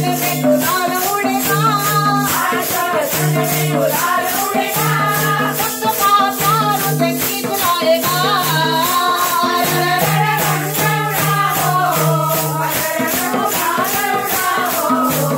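A group of women singing a Gujarati devotional song in unison to hand drums, with many wooden kartal clappers shaken and struck in a steady beat of about three strokes a second.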